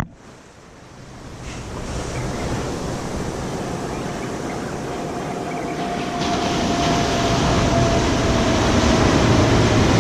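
Ocean surf washing on the shore, with wind on the microphone. The sound drops away sharply at the start and builds back up over about two seconds, and a faint steady tone sounds through the second half.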